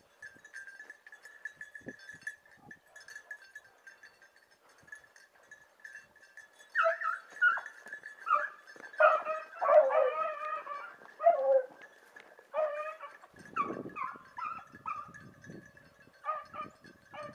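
A pack of beagles baying in chorus while running a hare, starting about seven seconds in, loud calls that fall in pitch and come in bunches. A faint steady high tone lies under it throughout.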